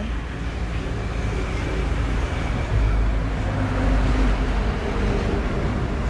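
Low rumble of a motor vehicle on the road, with a steady engine hum that grows louder about halfway through.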